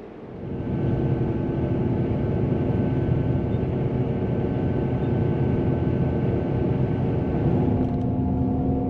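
Steady drone of a coach's engine and road noise heard inside the passenger cabin while it travels, with a constant engine hum under it. It comes up within the first second.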